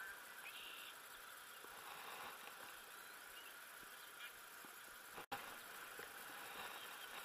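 Near silence: faint outdoor ambience, a steady high hiss with a few faint ticks. The sound cuts out for an instant about five seconds in.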